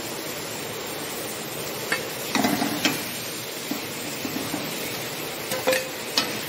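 A steel ladle scraping and clinking against a kadai while boiled vegetables are stirred into masala. The clinks cluster about two seconds in and again near the end, over a steady hiss.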